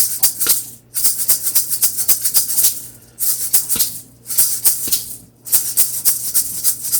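ʻUlīʻulī, a Hawaiian feathered gourd rattle with small rocks inside, shaken in five bursts of quick rattling separated by short pauses.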